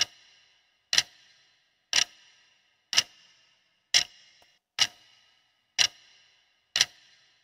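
Ticking-clock sound effect marking a countdown timer: one sharp tick about every second, each with a short ringing tail.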